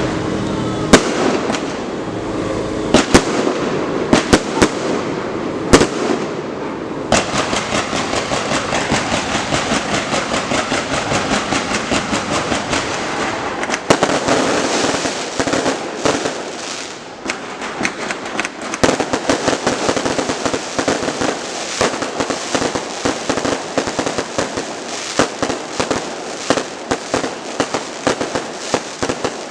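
Fireworks display: several loud separate bangs in the first few seconds, then a dense, rapid string of cracking reports that eases for a moment around the middle and picks up again.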